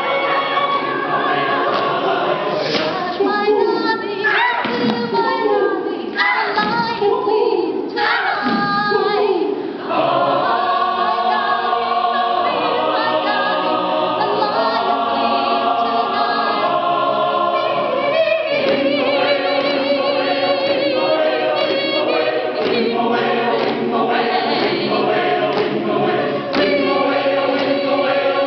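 Mixed chamber choir of men and women singing unaccompanied. For the first ten seconds or so the voices slide up and down in pitch. The choir then holds sustained chords for several seconds, and the singing turns rhythmic again about eighteen seconds in.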